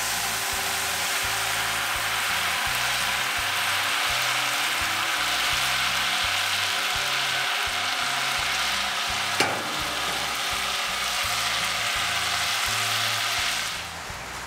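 Glazed duck sizzling steadily on a grill grate over the fire, with soft background music underneath. A single sharp click comes about nine seconds in, and the sizzle drops away near the end.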